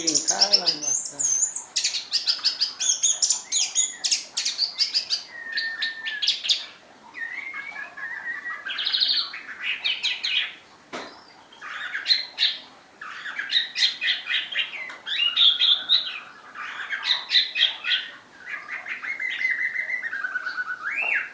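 Orange-headed thrush (anis merah) singing: a long run of rapid, varied phrases of quick repeated notes and short whistles, broken by a few short pauses.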